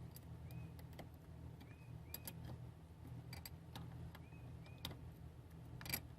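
Wrench turning the clamp nut on a car battery's negative terminal: scattered light metallic clicks and ticks as it is tightened, with a sharper click near the end.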